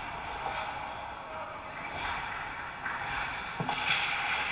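Hockey skate blades scraping the ice close by, a goalie's strides and stops, with the loudest scrape about four seconds in, over the hollow noise of the rink.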